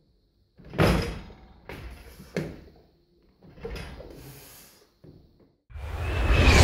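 A few short, noisy sounds from a weightlifter working a loaded barbell in the front rack. Near the end a whooshing sound effect swells steadily louder.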